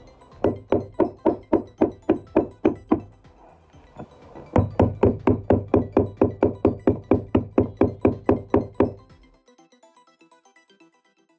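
Background music: a plucked melody of short notes on a steady beat of about four a second over a held bass note, thinning briefly about three seconds in and stopping about nine seconds in.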